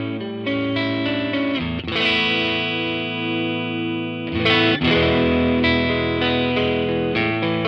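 Offset-body electric guitar played through a Laney CUB-Super 12, a 15-watt all-tube combo with a 12-inch speaker, set just slightly overdriven. Chords are strummed, one is left ringing for a couple of seconds, and new strums come in about four and a half seconds in.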